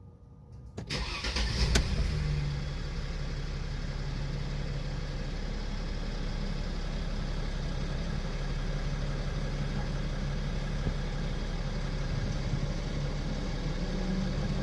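Mercedes-Benz G-Class engine starting on freshly fitted batteries: it cranks and catches about a second in, flares briefly, then settles into a steady idle.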